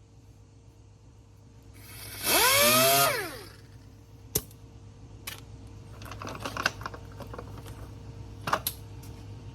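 A power sander run briefly for about a second, its whine rising and then falling as it spins down. Sharp clicks and scratchy handling sounds follow as it is handled and fitted with fresh 320-grit paper.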